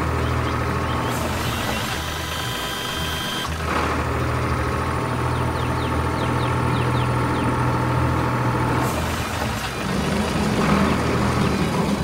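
Engine sound effects for an animated forklift and farm tractor: a steady motor hum that changes character about 3.5 and 9 seconds in.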